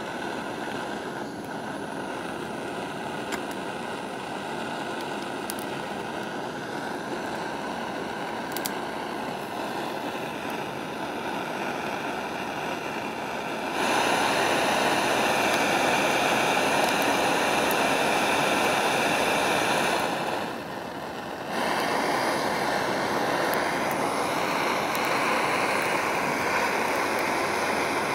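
Handheld butane gas torch flame hissing steadily as it plays on an egg. It gets louder about halfway through and drops away for about a second a few seconds later. A few faint ticks come in the first half.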